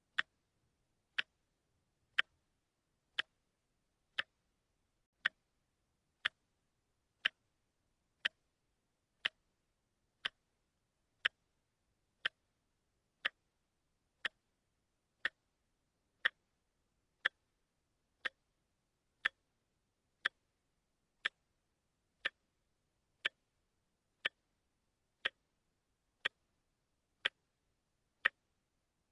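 A watch ticking steadily, one short, sharp tick each second.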